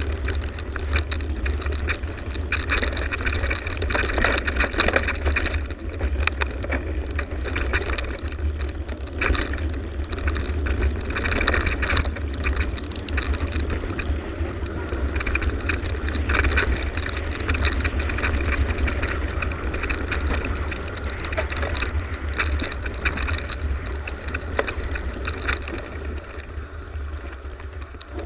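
Mountain bike riding fast along a dirt forest trail: a steady rumble of tyres on the dirt, the bike clattering and rattling over bumps, and wind buffeting the microphone. It quietens near the end as the bike slows.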